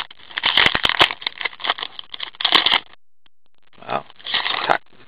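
Foil hockey card pack wrapper being torn open and crinkled in the hands: a long run of crackling with sharp clicks, then a pause of about a second and a shorter burst of crinkling.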